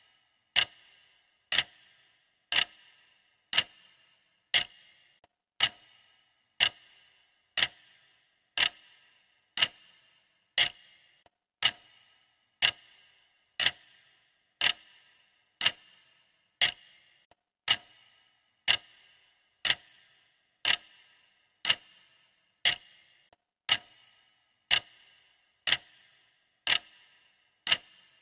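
Clock ticking steadily, one sharp tick about every second.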